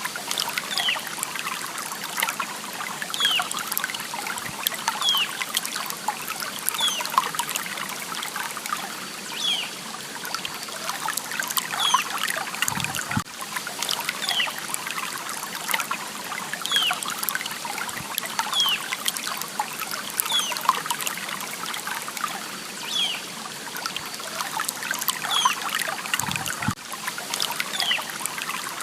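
A small stream trickling and bubbling steadily, with a bird repeating a short falling call about every two seconds.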